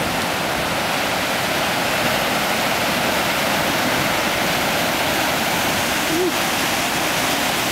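Heavy storm surf at high tide: a steady, unbroken rush of breaking waves and churning water.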